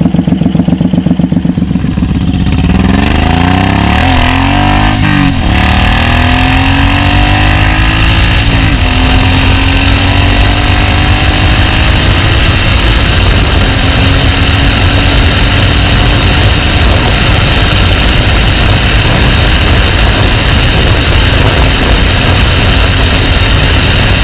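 Suzuki Boulevard M109R's large V-twin idling with an even pulse, then revved and accelerated up through the gears in the first several seconds. It then settles into steady cruising with wind rush.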